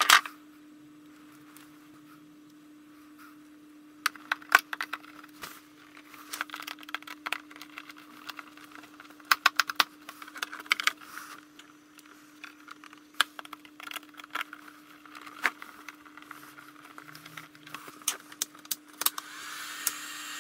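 Wires and connectors being handled inside a wooden electronics control box: irregular clicking, tapping and rattling over a steady low hum. Near the end, the box's cooling fan starts and runs with a steady whooshing rush.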